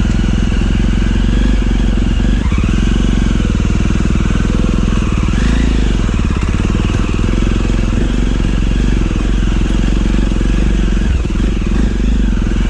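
Motorcycle engine running steadily under way while riding.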